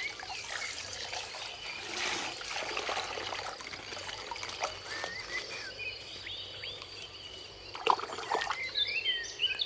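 Coloured water trickling and pouring out of a popped plastic ice-pack bag, with faint bird chirps behind it.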